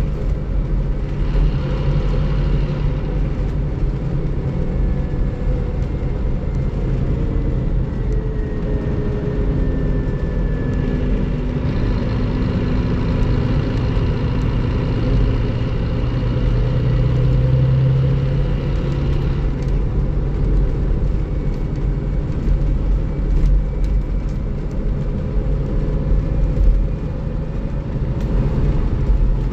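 Scania K360IB coach's DC13 straight-six diesel engine running steadily, its low drone rising and falling in pitch a few times.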